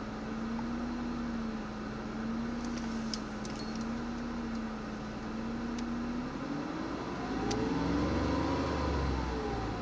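Ford Mondeo ST220's 3.0 V6 idling roughly, its note wavering slightly. About two-thirds of the way through, the revs rise briefly and fall back to idle.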